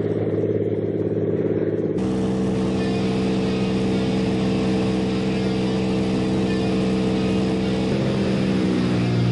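Single-engine floatplane's engine and propeller at full power on take-off. About two seconds in it switches to the steady drone of the engine heard inside the cabin in flight, which drops slightly in pitch near the end.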